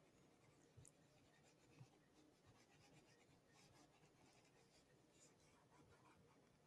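Near silence, with a few faint stylus taps and light scratching on a tablet screen.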